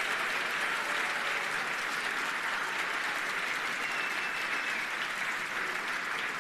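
Studio audience of many people applauding, a steady even clapping throughout.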